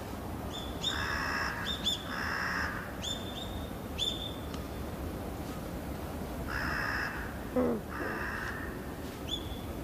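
Crows cawing, four harsh caws in two pairs, with short high bird chirps scattered between them and one lower falling call just before the second pair ends.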